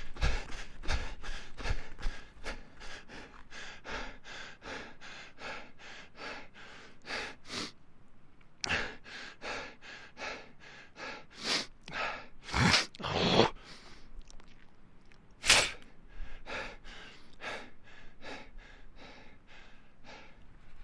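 A person panting hard from running: quick, even breaths, about two to three a second, with a few louder, deeper gasps in the middle. A few low thuds sound under the breathing in the first two seconds.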